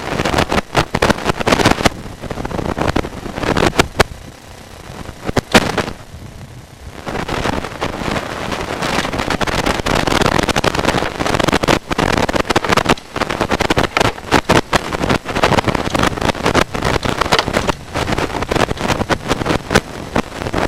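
RIDGID SeeSnake sewer inspection camera's push cable being fed back down a drain stack: rough scraping and rubbing noise, broken by many sharp knocks. The noise drops off for a few seconds about four seconds in, then picks up again.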